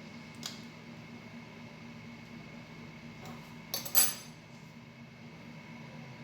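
Hard objects clinking: a light click about half a second in, then a quick cluster of sharp clinks with a short ring around four seconds in, over a steady low hum.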